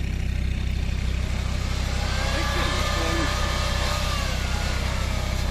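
Land Rover Discovery 2's engine running steadily under load as it climbs through deep snow ruts, with a faint higher note that rises and dips in the middle.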